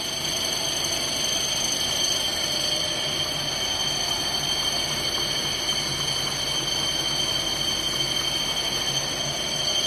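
PF-A 2900 jumbo roll slitting rewinder running at a work speed of 390 m/min: a steady machine noise with several steady high-pitched tones over a low hum.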